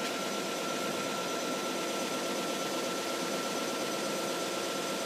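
Spindle of a Romi M17 CNC combination lathe running steadily at about 1,750 RPM: an even hum with a thin, steady high whine.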